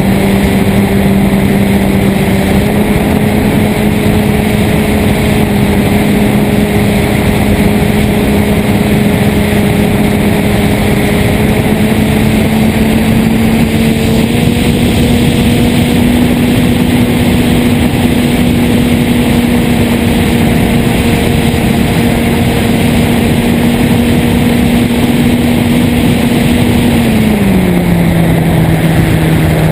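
Radio-controlled model airplane's motor and propeller running at a steady pitch, heard from a camera on the plane under a heavy rush of wind. The pitch steps up slightly twice, then drops near the end.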